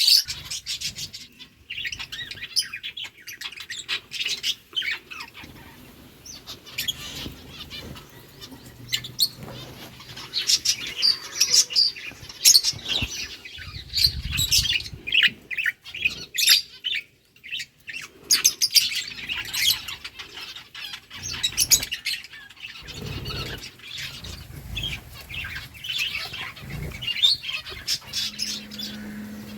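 Lovebirds chirping in many short, high calls, with a few low thumps about halfway through and again later.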